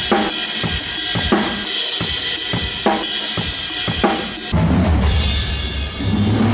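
Drum kit played with sticks: quick snare and bass drum strikes under a steady cymbal wash. About four and a half seconds in, the cymbals thin out and a deep, steady low sound takes over.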